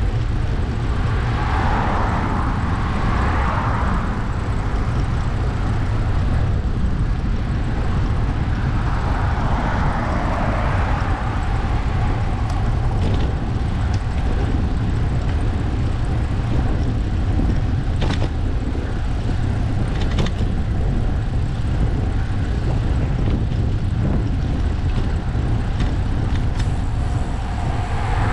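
Steady low rumble of wind and road noise on a moving bicycle ride, with a car passing about two seconds in, another around ten seconds, and a third near the end.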